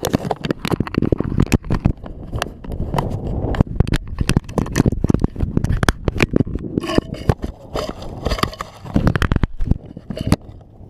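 Dense, irregular knocking and scraping close to the microphone, with a low rumble underneath.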